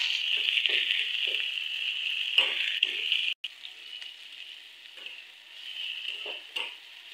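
Sliced onions sizzling in hot oil in a kadai while being stirred, with short scraping strokes every fraction of a second. About three and a half seconds in, the sound cuts off abruptly and comes back as a quieter sizzle with a few more stirs.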